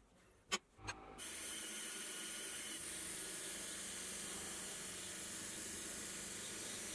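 Milling machine cutting with an end mill while a coolant nozzle sprays at the cutter: a steady spray hiss over a low steady hum from the spindle. It starts about a second in after two short clicks and cuts off abruptly near the end.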